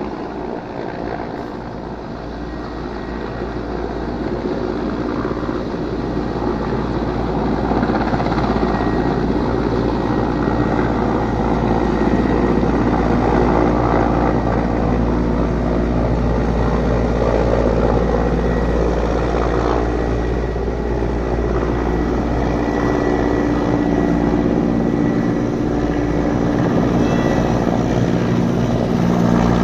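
Firefighting helicopter's rotor and turbine engines, growing louder over the first dozen seconds as it approaches, then running steadily at close range overhead.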